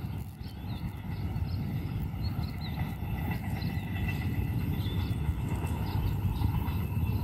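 Low rumble of a passing train moving away, with small birds chirping again and again over it.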